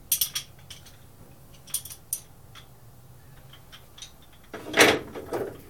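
Metal hand tools clinking as they are rummaged through and handled: scattered sharp clicks, then a louder clatter near the end.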